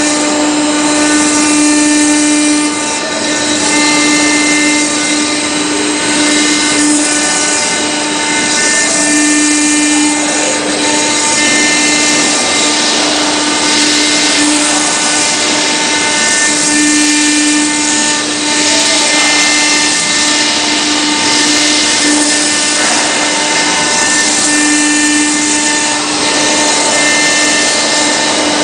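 CNC router spindle driving a tapered engraving bit into a marble slab under a water coolant stream: a steady machine hum and whine with a constant grinding hiss from the cutting. The hum swells and eases every few seconds as the bit works along the relief.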